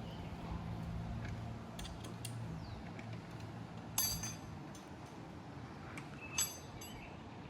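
Faint metallic clinks and taps of hand tools and metal bike parts being handled, with a sharper ringing clink about four seconds in.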